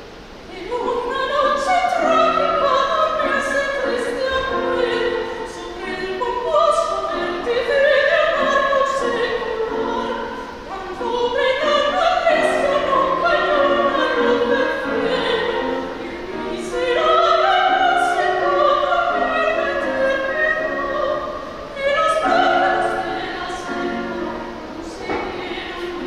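Woman singing a zarzuela excerpt in classical operatic style, with wide vibrato, to grand piano accompaniment. Her long phrases rise and fall, with brief dips between them about every five seconds.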